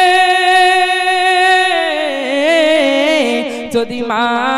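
A man singing a Bengali gojol (Islamic devotional song) into a microphone. He holds one long steady note, then from about two seconds in breaks into a wavering, ornamented run that slides down in pitch.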